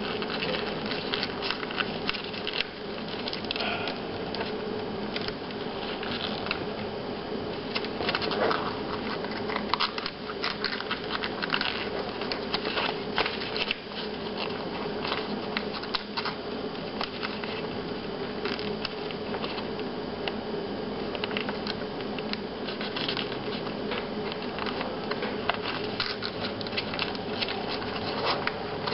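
Paper rustling, crinkling and creasing in irregular clicks and crackles as a sheet is folded and tucked into an origami cube, over a steady hum.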